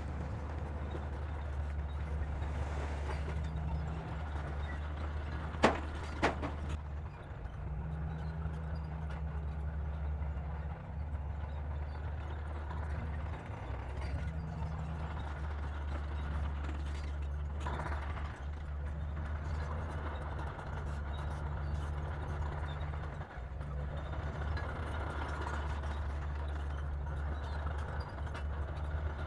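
Komatsu D60P bulldozer's diesel engine running with a steady low drone, with two sharp knocks close together about six seconds in.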